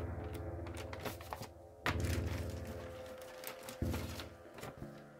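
Paper manual pages being leafed through and the booklet set down on a wooden floor, with soft rustles and a few clicks and taps, the loudest about two seconds in. Faint background music underneath.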